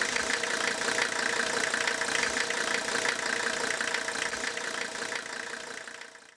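An engine running steadily, fading out near the end.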